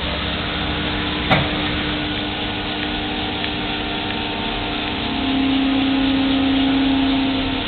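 Litz LV1100 vertical milling machine running with a steady whine and a sharp click about a second in. From about five seconds in, a louder, slightly lower whine takes over until near the end.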